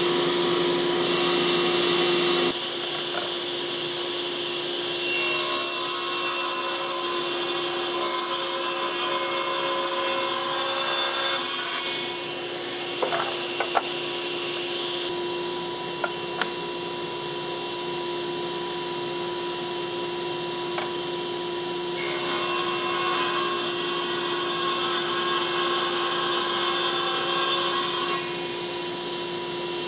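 Table saw running with a steady hum, cutting through old abemaki (Chinese cork oak) school-desk tops in two long passes: the first starts about five seconds in, the second a little past twenty-two seconds. A few knocks of wood on wood fall between the two passes.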